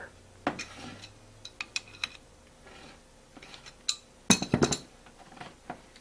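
Light metallic clicks and clinks from a zinc die-cast cable connector and the metal-clad cable being handled, with a cluster of sharper clinks about four seconds in.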